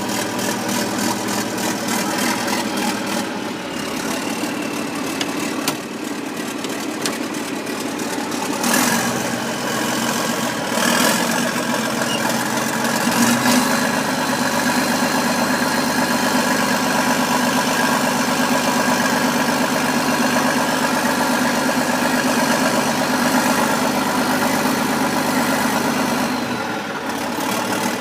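A motor-driven machine running steadily throughout, with a few short rushes of noise about 9, 11 and 13 seconds in.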